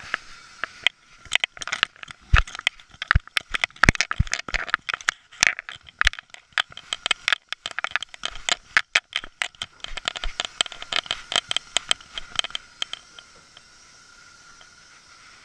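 A GoPro strapped to a dog's neck knocking and rubbing against the dog's fur and collar as it moves: a dense, irregular run of clicks, rattles and scrapes, with a few heavier thumps in the first few seconds, easing off near the end.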